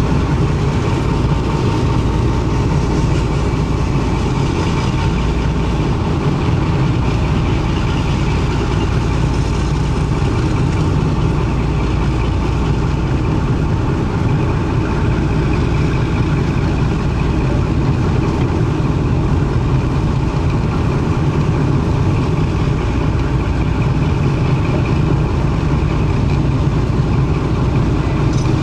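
Class 52 'Western' diesel-hydraulic locomotive's twin Maybach diesel engines running steadily, heard from inside the cab as the locomotive moves along slowly.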